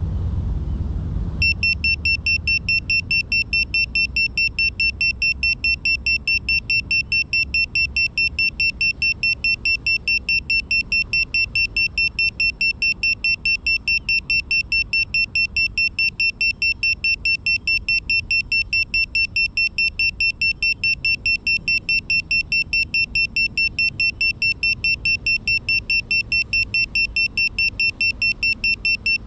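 A crashed FPV drone's lost-model buzzer beeping, a high piercing tone repeated rapidly and evenly several times a second. This is the locator beacon that sounds when a downed quad is lying still. It starts about a second and a half in, after a low rumble of wind on the microphone.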